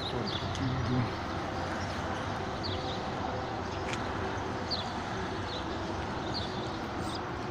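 Steady background hum with short, high bird chirps every second or two.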